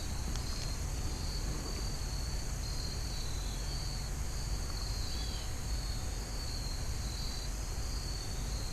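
Insects trilling: short high-pitched trills repeating every second or so, over a steady low outdoor rumble.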